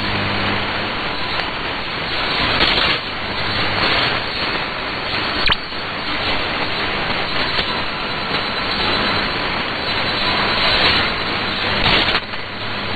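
Shortwave radio static through an AM receiver: a steady, loud hiss of band noise with a faint hum under it and one sharp crackle about five and a half seconds in.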